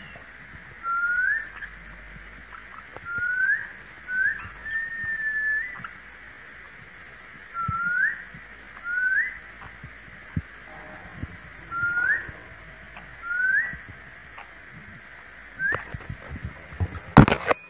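Caged budgerigars giving short, clear rising chirps, one every second or two, with one longer level whistle early on. A loud knock and rattle comes near the end.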